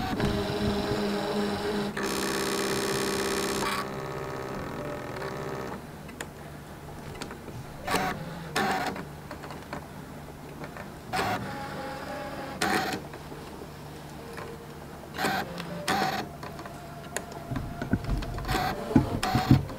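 Brother ScanNCut DX cutting machine half-cutting heat transfer vinyl: its motors whir as the blade carriage and mat move. A steady pitched whine runs for the first six seconds or so. After that it runs quieter, broken by short louder whirs every second or two.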